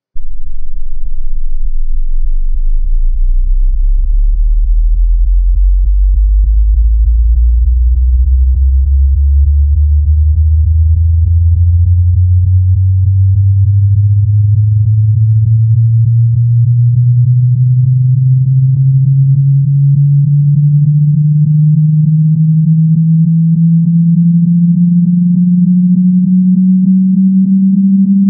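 Computer-generated pure sine-wave tone in a slow upward frequency sweep starting at 20 Hz. It begins as a very deep hum and rises steadily in pitch, at an even, loud level.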